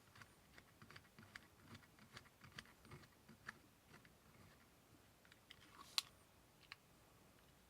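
Faint, irregular light clicks and taps of a pistol and its G10 grip panels being handled, with one sharper click about six seconds in.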